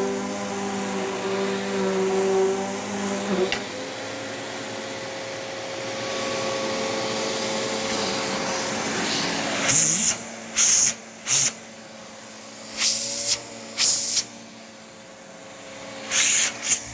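Riccar R20P upright vacuum cleaner running with a steady motor whine. The sound shifts and drops a little about three and a half seconds in. In the second half, several short, loud rushes of hiss break over the steady run.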